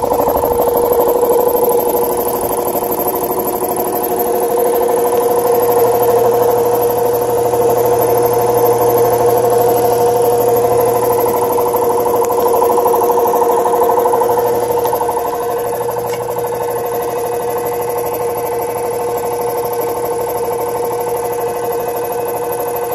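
1965 DeVilbiss air compressor running steadily: its 1/2 HP electric motor drives the piston pump through a V-belt, giving a rapid, even pumping chatter over a steady hum. It is a little quieter from about fifteen seconds in.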